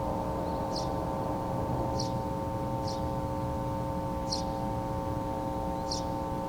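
Bar-chime melody of a municipal disaster-prevention broadcast ringing out: several chime tones held together as a steady chord through the loudspeaker. Short high chirps repeat about once a second over it.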